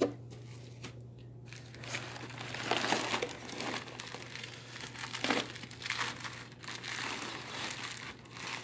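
Crumpled brown kraft packing paper crinkling and rustling as hands dig through a cardboard shipping box, starting about two seconds in and coming in irregular louder flurries.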